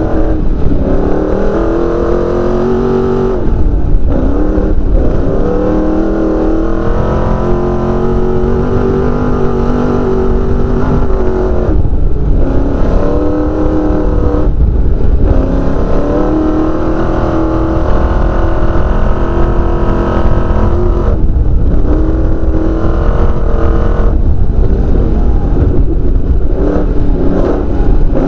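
Desert race car's engine at full throttle, heard from inside the cockpit. Its pitch climbs and drops back again and again as it shifts through the gears and lifts, over a constant low rumble from the car running on the dirt track.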